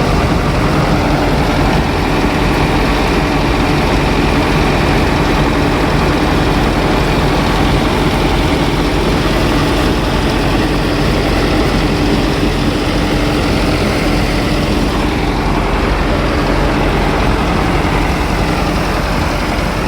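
Old combine harvester's engine running steadily at idle, with a constant low rumble and hum that stay even throughout.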